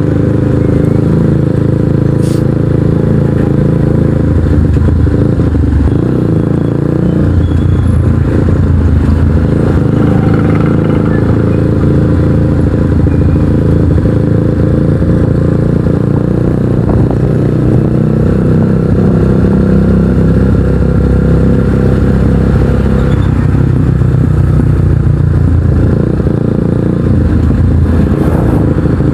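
Heavy, steady wind noise on the microphone of a moving motorcycle, with the Kawasaki NS150's engine and Akrapovic exhaust running underneath and mostly drowned out.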